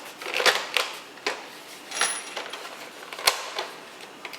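Plastic snap-fit clips of a Roomba 500-series faceplate clicking into place as the cover is pressed on by hand: a handful of sharp, irregular clicks, the loudest about three seconds in.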